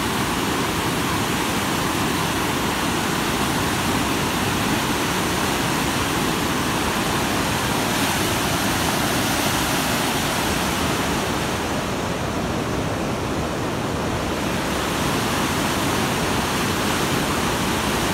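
Swollen river in flood rushing through rapids: a steady, loud roar of water, its hiss dulling briefly about two-thirds of the way through.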